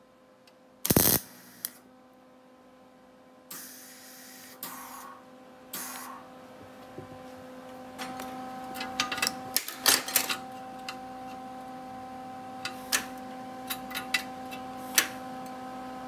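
A brief burst of MIG welding about a second in. Then a few short noisy stretches and, from about halfway, a run of sharp metallic clicks and clacks from handling the welder's ground clamp and the steel bracket, over a steady electrical hum.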